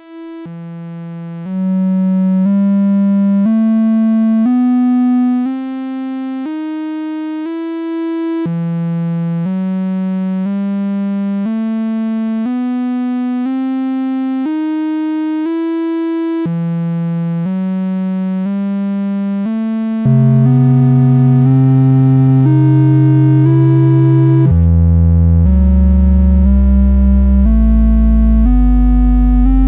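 Analog synthesizer voice playing a rising stepped sequence of single notes, about two a second, that repeats every eight seconds or so. About twenty seconds in, the Noise of Antimatter Subshaper's subharmonic output comes in louder, adding deep low tones that step downward as the sequence rises: the kind of inverted pitches the Subshaper gives when it is fed pitch CV.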